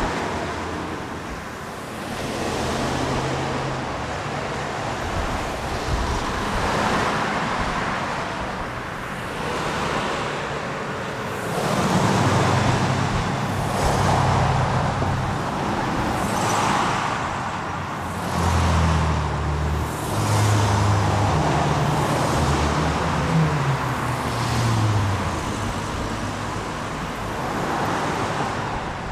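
City road-traffic ambience: a steady rush of traffic with cars passing one after another. A low engine drone from heavier vehicles joins from about twelve seconds in, and the traffic grows louder.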